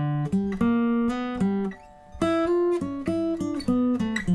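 Acoustic guitar playing single plucked notes in two short melodic phrases, with a brief pause about two seconds in. The first phrase moves among low notes (D up to G, B flat, B and back to G); the second starts higher and steps downward.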